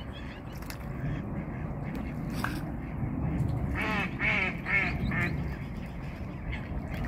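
Waterfowl calling, a quick run of four nasal calls about four seconds in, over a steady low rumble.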